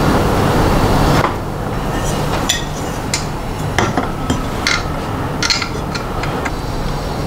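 Sharp metallic clicks and clinks of an Allen key and aluminium extrusion frame parts knocking together as a 3D printer frame is put together. About eight separate ticks are spread over the middle and later part, over a steady low hum. In the first second there is a louder steady rushing noise that cuts off abruptly.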